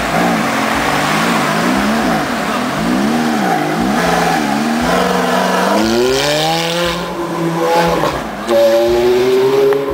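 Ferrari mid-engine V8 sports car revving in short throttle blips, its pitch rising and falling about once a second. About halfway through it accelerates away with a long rising pitch, a break near the end as it shifts gear, then rising again.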